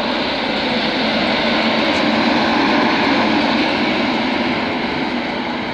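Class 91 electric locomotive 91110 and its train moving past: a steady rumble of wheels on rail and running gear. It swells to a peak about halfway through, then slowly eases off.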